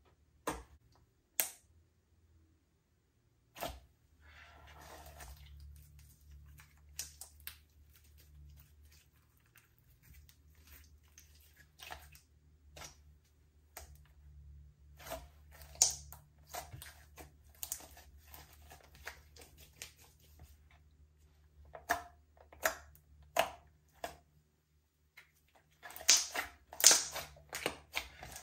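Slime being kneaded and pressed by hand, giving irregular sticky clicks and pops that come thicker and louder near the end, over a faint steady low hum.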